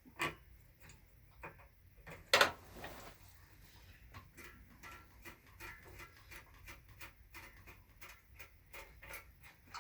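Small clicks and taps of hands working a motorcycle throttle cable and carburetor slide free. There are two sharper knocks, about a quarter second in and about two and a half seconds in, then a run of light ticks.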